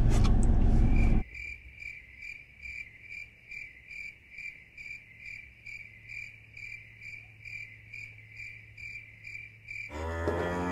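Cricket chirping sound effect: an even run of short, high chirps, about three a second, cut in sharply over the background after about a second. It is the stock gag for an awkward, silent wait. Near the end the chirps stop abruptly and a louder, low wavering sound comes in.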